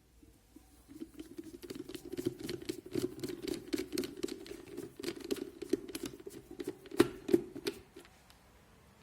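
Screwdriver driving screws into the plastic housing of an electric kettle: a fast run of small clicks and creaks that stops near the end, with two sharper clicks shortly before it stops.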